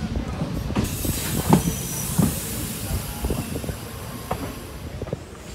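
Coach wheels of the Pamani Express knocking irregularly over rail joints and points, with a steady rumble, heard from an open carriage door. A high hiss comes in about a second in and fades near the end, and the knocks grow quieter toward the end.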